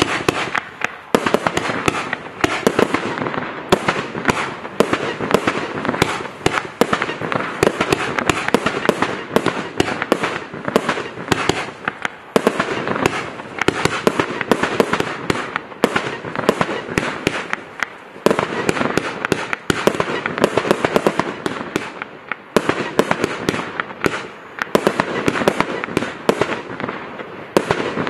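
X-CITE Night Ghost (BK6828) firework cake firing: a dense, rapid barrage of shots and bursts that starts abruptly and keeps going, with brief lulls a few times.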